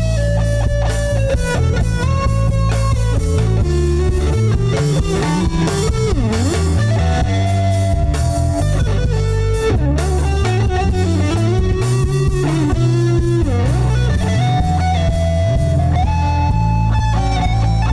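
Les Paul-style electric guitar playing a lead solo over a band's bass and drums: a melodic line of held notes with several string bends.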